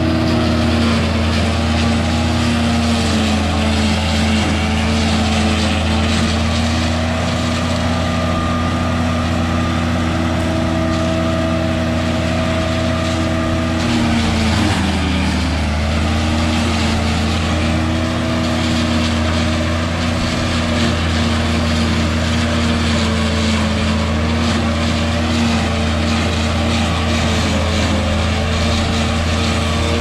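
Lebanon silage processor running in standing corn, chopping stalks and blowing silage through its spout into a wagon. It makes a steady engine drone over a rushing blower, and the pitch dips briefly about halfway through.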